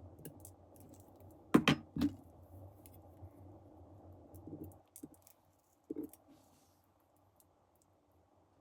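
Light clicks and two sharp taps about a second and a half in, then a couple of softer knocks, from small watch crown and stem parts and tools being handled on a work surface.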